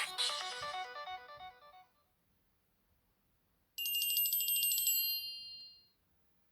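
Samsung SGH-L310 mobile phone ringtones: a stepping electronic melody fades out in the first two seconds. After a short silence, a high, rapidly trilling electronic ring sounds for about two seconds and fades away.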